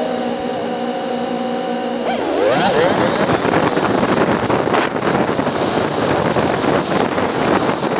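Motorcycle engine idling steadily at a stop, then about two seconds in revving with a rising pitch as the bike pulls away. After that, a steady mix of engine and wind noise on the helmet microphone while riding.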